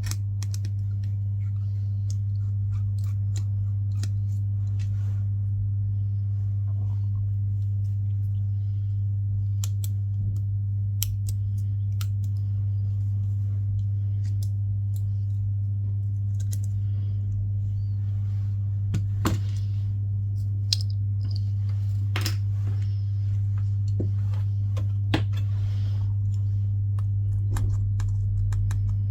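Small precision screwdriver and metal tools clicking and tapping on the iPhone's internal parts as the rear camera's screws are taken out: scattered light ticks, a few sharper ones past the middle. Under them runs a steady low electrical hum.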